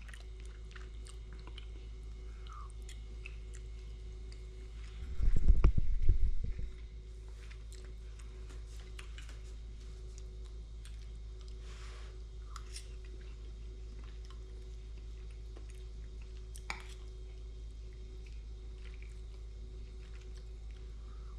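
A person chewing and biting a meal of snapper and bammy, with faint crunches and small mouth clicks over a steady low hum. About five seconds in, a loud low rumble lasts for about a second and a half.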